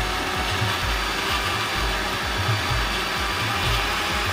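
Countertop blender running steadily on its lowest setting, pureeing a thick mash of hot peppers, carrots, garlic, lime and vinegar, with an uneven low churning under the motor's whir.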